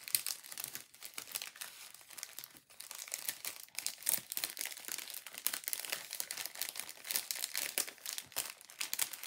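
Clear plastic packaging crinkling as it is handled, in dense irregular crackles with a short lull about two and a half seconds in.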